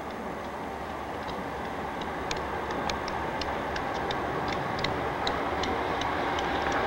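Approaching CSX diesel locomotive leading the intermodal train TV 7: a steady engine and rail rumble growing louder as it nears, with scattered sharp ticks over it.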